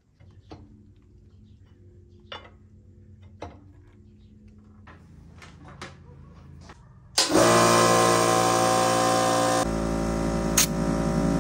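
A few faint clicks of a wrench on lug nuts, then a small portable air compressor starts abruptly about seven seconds in and runs loudly and steadily, its sound changing about two and a half seconds later.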